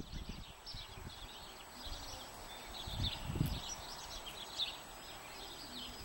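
Small songbirds chirping, a steady scatter of short high notes, with a couple of low bumps about three seconds in.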